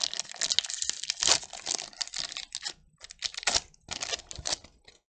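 Foil Pokémon booster-pack wrapper crinkling and tearing in the hands as the pack is opened and its cards handled: a dense run of sharp crackles for about three seconds, thinning to a few short rustles and stopping near the end.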